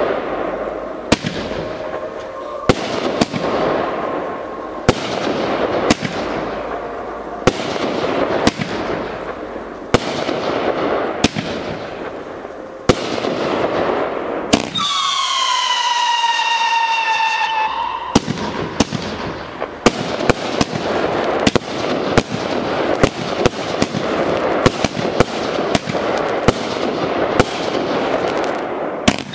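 A 500 g, 30-shot consumer fireworks cake firing: shots launching and bursting one to two seconds apart, with crackling between them. About halfway through, a whistle falls in pitch for a few seconds. In the last third the bangs and crackles come quicker.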